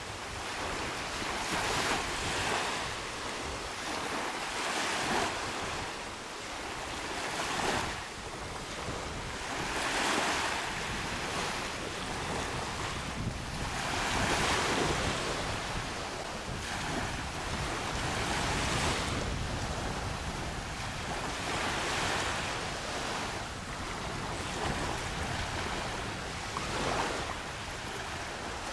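Small waves washing up on a sandy beach, each wash swelling and fading every few seconds, with wind rumbling on the microphone.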